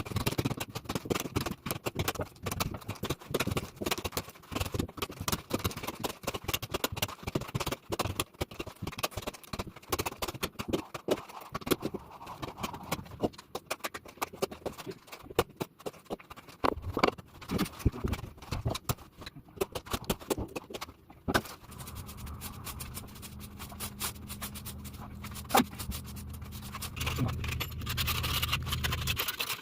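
Floor tiling work: repeated scraping with sharp clicks and taps of tools on tile and adhesive. About two-thirds of the way in, a low steady hum starts under it and stops shortly before the end.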